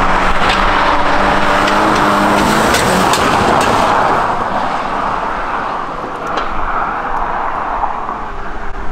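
A car lowered on cut springs drives fast down a rough, broken asphalt road. Its engine and loud tyre noise come with a few sharp knocks, and the sound fades after about four seconds as the car goes away. Low wind rumble on the microphone runs underneath.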